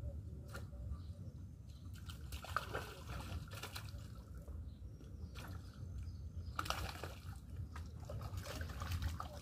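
Water sloshing and trickling at the lake shore in two short spells, over a steady low rumble.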